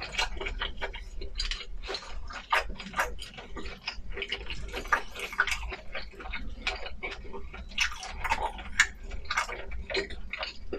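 Close-miked eating sounds: wet chewing and mouth smacks, a dense run of short sharp clicks.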